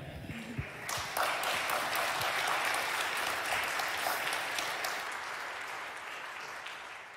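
Congregation applauding, swelling about a second in and gradually dying away toward the end.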